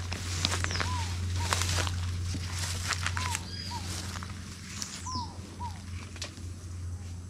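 Birds calling outdoors, short arched notes repeated every half second or so, with a few higher falling calls. Crackling and snapping of dry vegetation runs underneath, over a steady low drone.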